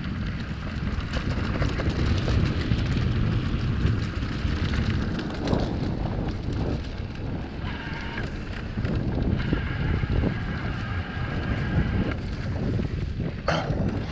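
Wind buffeting the action camera's microphone over the rumble of knobby tyres and the rattle of an electric full-suspension mountain bike riding a bumpy dirt trail, with scattered knocks from the bike. A faint steady whine comes in for a few seconds after the middle, and a short sharp swish sounds near the end.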